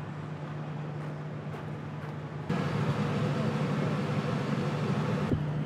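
A steady low machine hum, holding one pitch, over outdoor background noise; it gets louder about two and a half seconds in.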